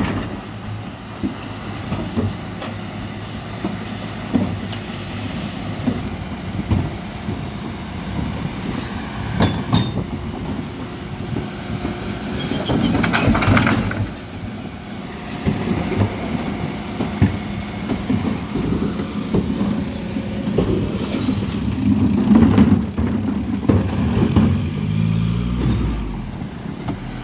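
Mercedes-Benz Econic refuse lorry running while its rear bin lift tips blue recycling bins into the hopper, with the engine and lift hydraulics working steadily. Several loud clattering bangs come from the bins and the recycling being emptied.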